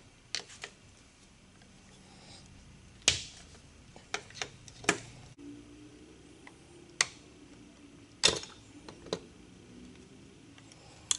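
Scattered sharp clicks and taps of a screwdriver, screws and the aluminium base plate of a Holley 750 four-barrel carburetor as the base plate screws are taken out and the plate is lifted off. About ten separate clicks, a few of them louder.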